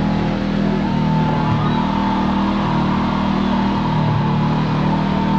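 Kawasaki Teryx KRX4 1000 side-by-side's parallel-twin engine running steadily under way, with a thin steady high tone over it from about a second in.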